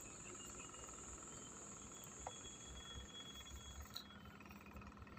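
Faint outdoor ambience: a steady high hiss that stops about four seconds in, over a low rumble, with a couple of small clicks.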